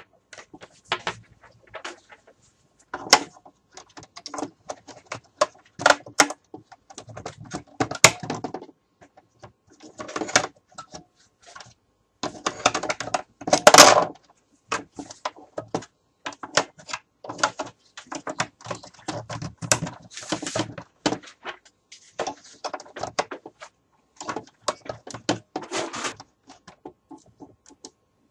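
Batteries and a plastic toy rifle being handled: batteries are set down and pushed into the battery compartment, with irregular plastic clicks, knocks and rattles. The loudest knocks come about 8 and 14 seconds in.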